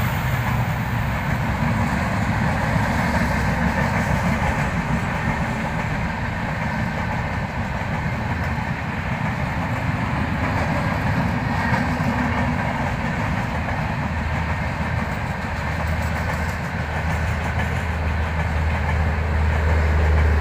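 Indian passenger train's coaches passing close by at speed: a steady loud rush of wheels on rail with clickety-clack. A low hum grows stronger in the last few seconds.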